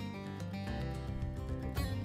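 Background music with acoustic guitar playing steadily.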